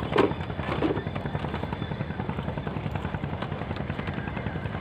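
A small engine running steadily, a rapid low chugging.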